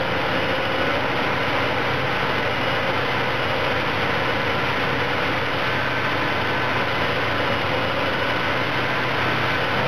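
Caterpillar 5110B hydraulic excavator's diesel engine running steadily while the machine works, a constant low drone with faint steady tones and no breaks.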